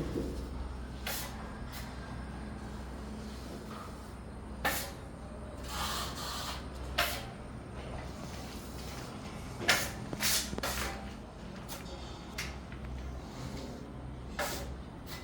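Irregular short knocks and brief scrapes, about eight in all, over a steady low hum.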